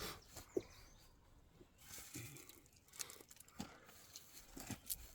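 Faint rustling with a few soft scattered clicks, close to near silence.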